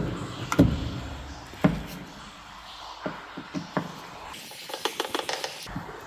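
Clicks and knocks of a car door lock and small hand tools being handled: a few sharp knocks in the first two seconds, then scattered clicks and a quick run of small clicks about five seconds in.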